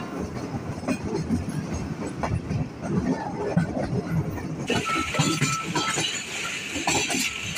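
Passenger train coaches running at speed, a steady rumble with the irregular clatter of wheels on the rails, heard from beside the moving coaches. About five seconds in a louder hiss joins the rumble.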